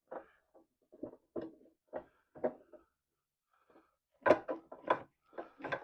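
Wooden knocks and clatters from handling 2x6 boards: a string of light knocks, then a quicker run of louder ones near the end.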